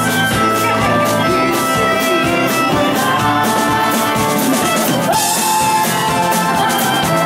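Live country band music with a steady drum beat under sustained instrument tones; a brighter cymbal-like wash comes in for about a second past the middle.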